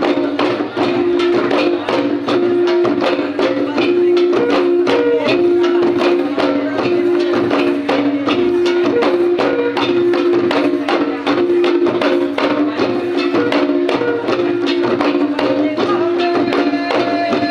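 Garo Wangala folk music: many long dama drums beaten together in a fast, dense rhythm, under a melody of held notes that moves back and forth between two pitches.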